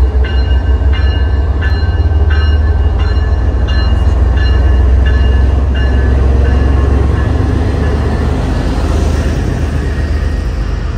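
MBTA diesel locomotives led by MPI HSP46 No. 2031 running past close by with a heavy low engine rumble. A locomotive bell rings steadily at about one and a half strikes a second until about six seconds in.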